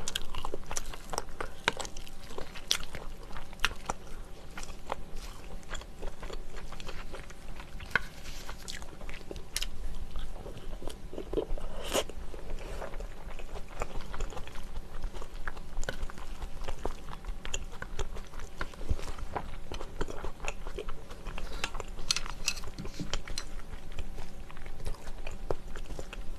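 Close-miked biting and chewing of soy-braised chicken (jjimdak), heard as a run of irregular short mouth clicks.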